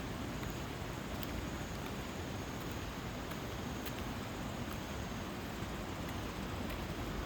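Mountain valley stream rushing steadily, with a few faint ticks.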